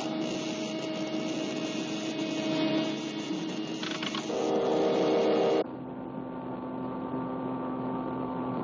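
Steady electrical humming of machinery, a cartoon sound effect. A louder hum comes in about four seconds in, then the sound cuts off sharply to a duller, quieter hum about a second later.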